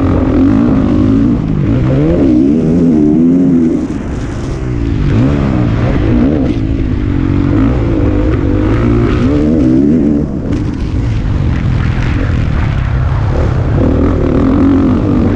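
Motocross dirt bike engine heard from a camera on the bike, revving up and down again and again as it is ridden hard around the track. The note drops away briefly about four seconds in and again about ten seconds in before climbing again.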